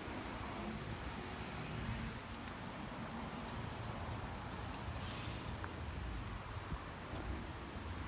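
An insect chirping in short, evenly spaced high pulses, about two a second, over a steady low background noise.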